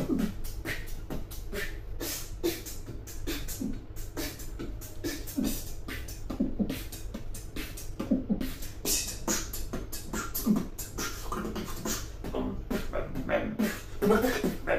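Beatboxing: a fast run of mouth-made percussion, sharp clicks and snare- and hi-hat-like hits, with short pitched notes mixed in.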